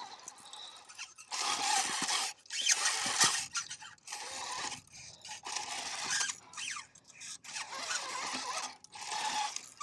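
Axial SCX6 RC crawler working over rock in short stop-start throttle bursts: the electric drivetrain whines and the tires scrape and grind on the stone. A few brief whines rise and fall in pitch partway through.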